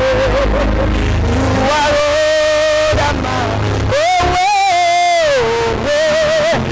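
Gospel worship music: a melody line held in long notes with wavering vibrato and bends, over a steady bass.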